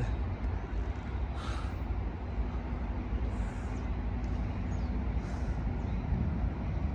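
Steady low rumble with a faint steady hum, and a few short faint hisses.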